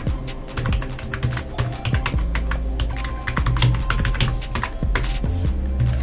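Fast typing on a Live Tech KB04 membrane tenkeyless keyboard: a dense, irregular run of soft key clicks.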